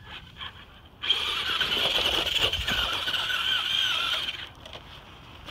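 Traxxas Rustler RC truck's motor whining high and steady for about three seconds as the truck climbs a steep dirt slope with its wheels throwing dirt. The whine starts about a second in and cuts off shortly after four seconds.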